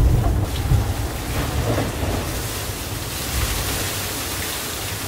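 Water and wind noise aboard an IMOCA 60 racing yacht sailing fast offshore: a heavy low rumble of the hull driving through the sea with a rushing hiss of spray. It is loudest in the first second, and the hiss grows steadier after about two seconds.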